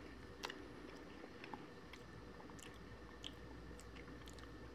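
Faint mouth sounds of someone tasting a mouthful of sherbet powder: quiet smacks and little clicks at irregular moments, the sharpest about half a second in.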